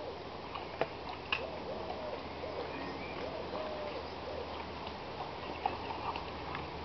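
A pigeon cooing a short repeated phrase of soft, low, rounded coos, with a couple of sharp clicks near the start.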